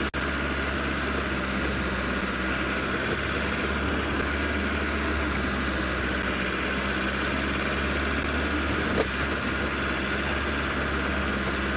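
Game-drive vehicle's engine running steadily, heard from on board, with a brief dropout in the sound just after the start.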